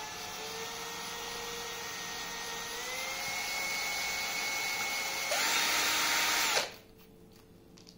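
Cordless drill spinning an ARP connecting-rod bolt in its chuck while a strip of 600-grit sandpaper is held against it, sanding down the oversized shank so the bolt will fit the rod. The motor whine steps up in pitch about three seconds in, turns louder with a rougher hiss at about five seconds, then stops near seven seconds.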